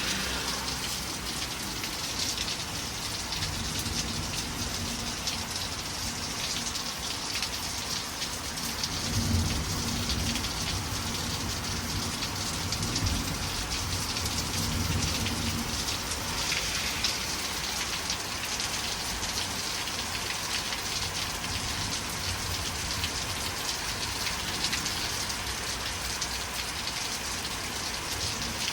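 Heavy rain pouring steadily onto the ground, with a low rumble of thunder rolling through the first half, strongest about nine seconds in.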